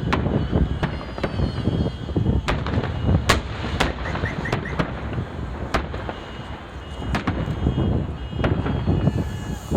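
Fireworks salute shells bursting overhead, sharp bangs about once a second over a constant low rumble of further distant bursts.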